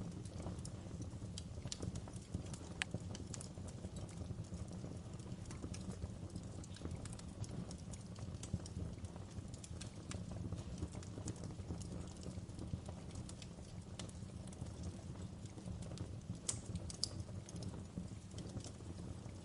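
Wood fire burning in a fireplace: a steady low rumble of flames with irregular sharp crackles and snaps.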